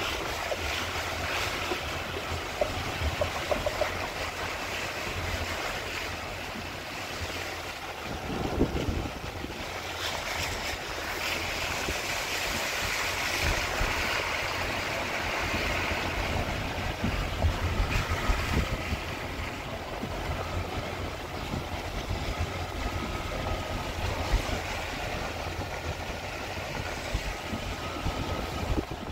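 Steady road and wind noise from a moving car, a low rumble with a hiss of wind over it.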